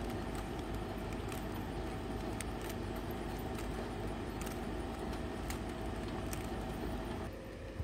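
A plastic Rubik's cube clicking irregularly as its layers are twisted by hand, over a steady background hum that drops away near the end.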